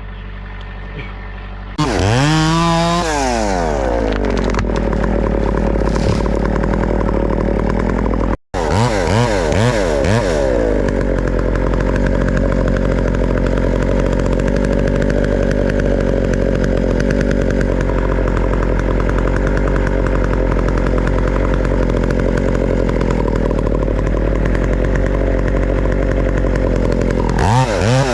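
Chainsaw revving up about two seconds in and held at steady full throttle, cutting wood in tree felling. The sound cuts out for an instant partway through, followed by quick up-and-down throttle blips, and the revving rises and falls again near the end.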